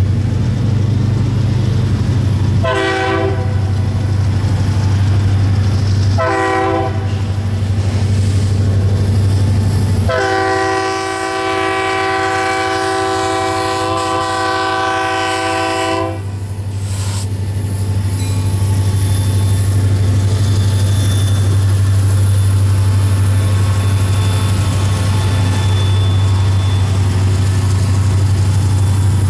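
A diesel locomotive's Leslie RS3K chime air horn sounding for a grade crossing: two short blasts, then a long one of about six seconds, over a steady low rumble. Near the end the train's locomotives rumble past.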